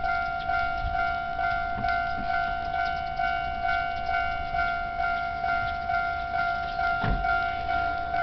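Japanese railway level crossing's warning bell ringing steadily, about two electronic dings a second, signalling an approaching train. A brief low thump about seven seconds in.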